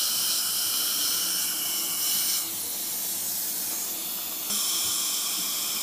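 Dental suction tip hissing steadily as it draws air and fluid at the surgical site. It goes quieter about two and a half seconds in and returns about two seconds later, and a faint steady high tone comes in near the end.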